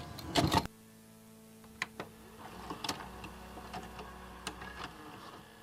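Two short loud noisy bursts at the very start, then a few scattered faint clicks and taps over a low steady hum.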